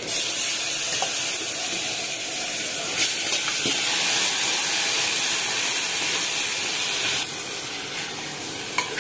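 Freshly washed, still-wet mutton pieces hitting hot oil in an aluminium pressure cooker, sizzling with a loud hiss as they are stirred with a ladle. The hiss starts suddenly and stops suddenly about seven seconds in.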